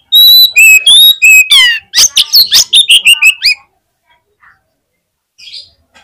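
Male oriental magpie-robin (kacer) singing a loud, fierce 'fighter' song: a few clear held whistles stepping in pitch, then a quick downward-sweeping note and a rapid run of sharp chattering notes that stops about three and a half seconds in. A faint short call follows near the end.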